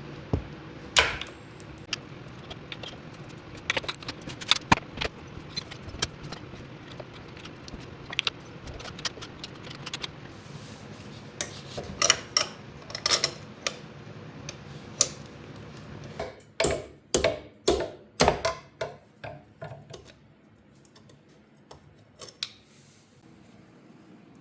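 Hand tools and small metal parts clicking and clinking as screws, a clip and the shifter are worked off a Honda ATC70's engine side cover, with a quick run of louder knocks about two-thirds of the way through.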